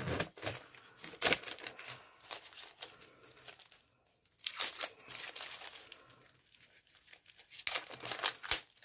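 Plastic wrapping crinkling and tearing as it is pulled off a whetstone, in irregular crackling bursts with a short pause about four seconds in.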